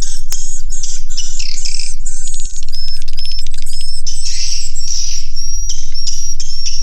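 A flock of swiftlets inside a swiftlet house chirping and twittering, with rapid clicking mixed among their calls and short repeated high whistled notes in the second half. A steady low hum runs underneath.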